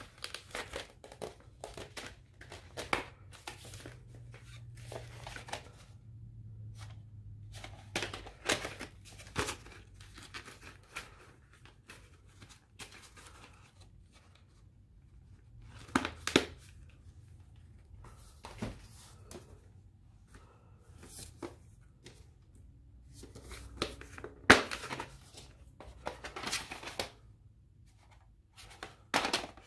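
Plastic clamshell VHS case and its paper insert being handled: the paper rustles and crinkles while the plastic case and cassette give off scattered sharp clicks and knocks, the loudest about halfway through and again near the end.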